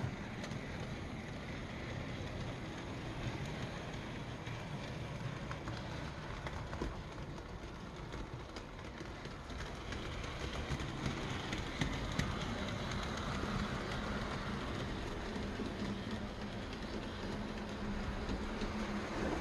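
OO gauge model train running on the layout track: wheels rumbling and clicking over the rails, with the locomotive's small electric motor humming a steady low tone that comes in about two-thirds of the way through.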